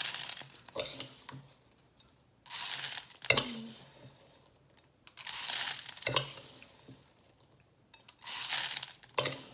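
Dry rice poured by the spoonful through a paper funnel into a plastic water bottle: about four grainy hissing pours, each lasting about a second, with a couple of sharp clicks of a metal spoon.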